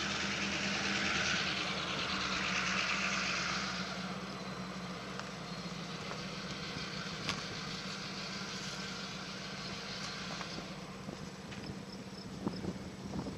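Union Pacific freight train of hopper cars rolling past: a steady rush of steel wheels on rail with a low steady hum underneath and a few clicks. The rush eases about four seconds in and again near the end.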